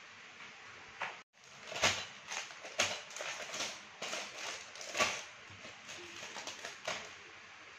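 Clear plastic bags full of small plastic building bricks being handled and set down: crinkling plastic with the loose bricks rattling inside, a run of short crackles and clicks.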